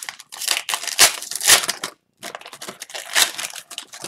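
Foil wrapper of a hockey card pack crinkling and tearing as it is opened by hand. The crackle comes in two runs with a short pause about two seconds in.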